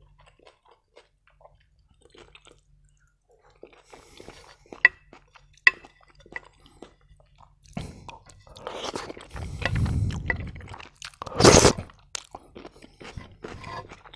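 Close-miked eating: soft chewing and a couple of sharp clicks, then loud slurping from a wooden spoon, the loudest slurp about eleven and a half seconds in, called a good slurp on the microphone.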